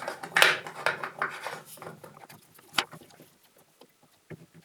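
Chainsaw chain and guide bar being handled while fitted onto the saw: a short rattling scrape near the start, then two sharp clicks, one about halfway through and one near the end.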